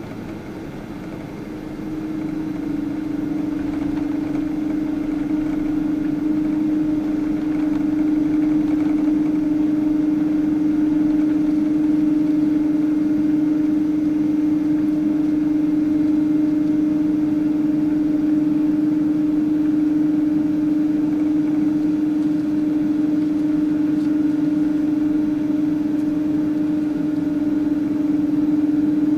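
Boeing 777-200's engines heard inside the cabin: a steady hum with one low tone that comes in about two seconds in, grows louder over the next several seconds, then holds.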